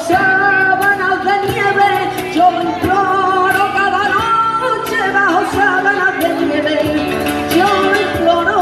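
Sevillanas sung live by a woman through a microphone, with flamenco guitar strumming underneath.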